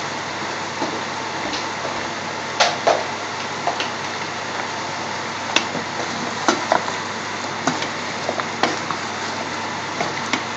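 A wooden spoon stirring chunks of butternut squash and chicken in a stainless steel curry pot, with irregular knocks and scrapes against the pan over a steady hiss.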